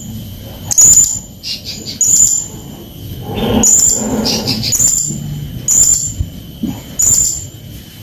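Serindit (hanging parrot) calling: short, sharp, very high-pitched chirps repeated roughly once a second, with a lower, rougher sound rising underneath at times.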